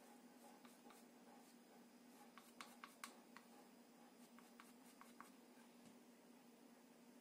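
Faint, sharp little scrapes and taps of a thin metal spatula working wood putty into gaps in a wooden model ship hull, in two short clusters about two and a half and about four and a half seconds in, over a faint steady hum.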